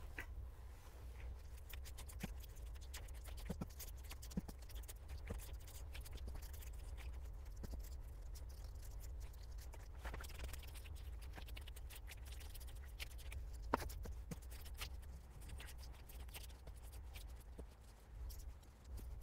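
Faint soft taps and pats as pieces of tortilla dough are pinched off and set down on a floured wooden board, with a brief scrape about ten seconds in as gloved hands reach into the mixing bowl and a sharper knock a few seconds later. A steady low hum runs underneath.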